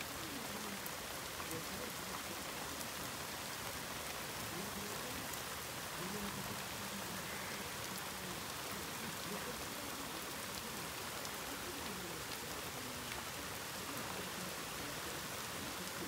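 Steady rain falling in a thunderstorm: a constant, even hiss with scattered small drop ticks.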